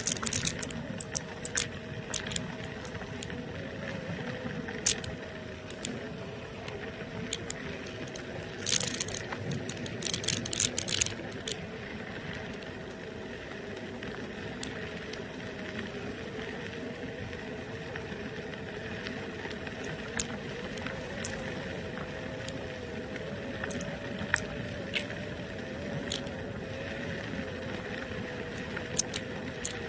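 NIU KQi2 electric kick scooter riding over a gravel road: the electric motor gives a steady whine that wavers slightly with speed, over the rolling rumble of the tyres. Sharp clicks and rattles from the gravel come throughout, with a cluster about nine to eleven seconds in.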